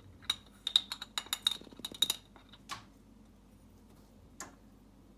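Metal tablespoon tapping and clinking against a stainless steel mixing bowl: a quick run of light taps with a short metallic ring in the first two seconds, then two more single taps.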